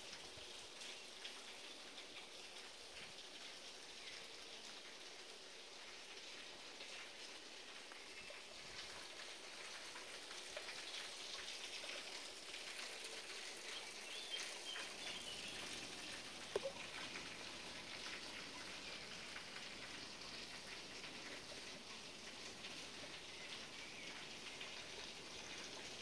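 Small clear forest brook trickling and splashing, a faint steady hiss of running water. A few faint bird chirps come near the middle, and there is a single sharp click a little past halfway.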